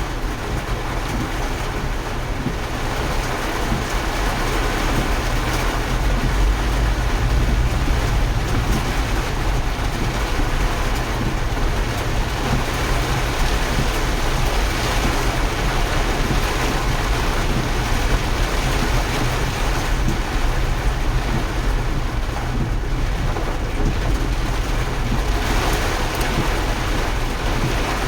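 Steady rushing of floodwater, with a deep rumble underneath.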